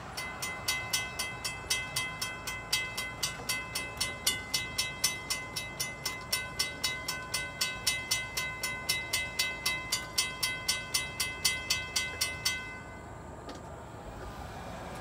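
Railroad grade-crossing bell ringing at about four strokes a second while the crossing gates rise after the train has cleared. It stops abruptly near the end.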